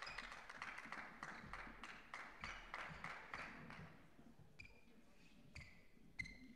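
Faint footsteps and short squeaks of badminton shoes on the sports-hall court floor as players walk between rallies. Near the end come three sharper, brief squeaks.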